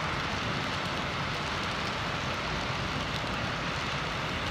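Model railroad freight cars rolling past on the layout track: a steady rolling rattle of wheels on rails, with faint irregular clicks.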